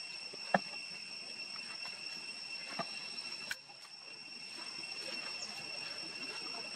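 Insects droning at a steady high pitch, with one sharp click about half a second in and two fainter clicks around three seconds in.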